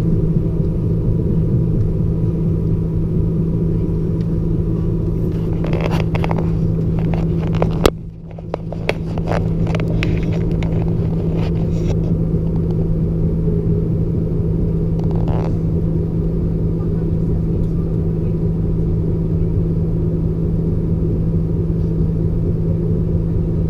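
Class 153 diesel railcar running at speed, heard from its cab: a steady low drone from the underfloor diesel engine and the wheels on the rails. There are a few clicks and knocks between about six and twelve seconds in. About eight seconds in there is a sharp knock, then the sound drops suddenly for a moment before returning.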